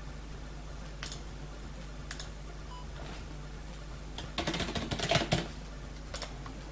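Computer keyboard typing a password: a quick run of keystrokes between about four and five and a half seconds in. A few single clicks come before it and one after, over a steady low hum.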